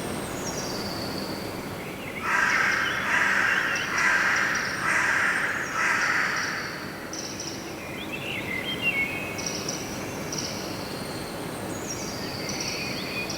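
Morning birds: high chirps and whistles from small birds throughout, and about two seconds in a run of about five loud, harsh calls from a larger bird, crow-like caws, over a steady low background hum.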